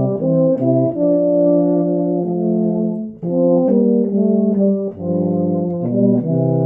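Two euphoniums playing a slow hymn in two parts, a soprano line over a bass line, moving together from note to note with short breaths about three and five seconds in.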